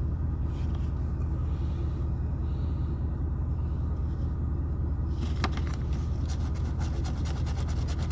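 A car engine idling with a steady low hum. From about five seconds in, a coin scratches the latex off a lottery scratch-off ticket in rapid strokes.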